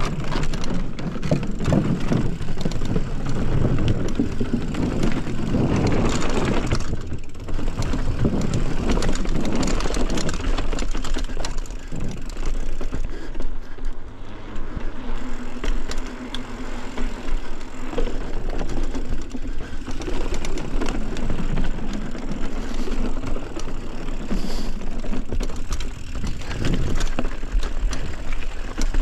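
Mountain bike being ridden on a trail: a continuous rushing tyre noise with many small knocks and rattles.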